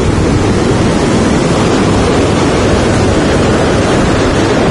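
Surf breaking on a beach under a steady, loud rush of wind buffeting the microphone.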